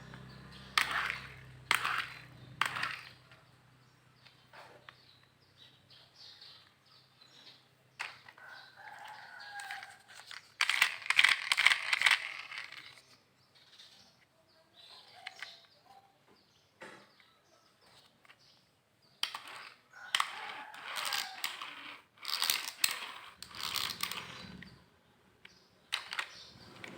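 Plastic toy vehicles being handled and knocked together: sharp clicks and clattering in several bursts, the loudest about halfway through, with quieter rustling and handling between.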